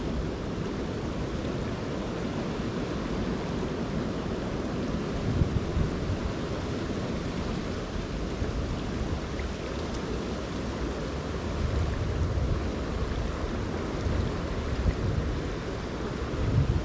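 Wind buffeting the microphone in uneven gusts over a steady rush of noise from a river running high.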